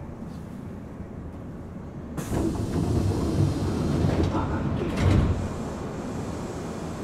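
Nagoya Municipal Subway 3000 series train heard from inside the car. A steady running rumble swells suddenly about two seconds in into a louder rush and rattle for about three seconds, with a sharp thud near the end, then settles back to a steady run.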